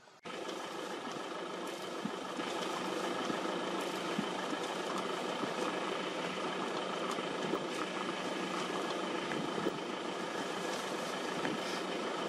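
A car engine idling steadily. It starts abruptly just after the beginning.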